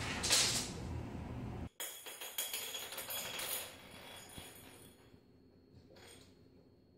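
A small bell jingling in quick, irregular shakes, strongest in the first few seconds and then fading to faint jingles, the kind a kitten's bell makes as she dashes about. Under the first part runs a low steady rumble that cuts off abruptly just under two seconds in.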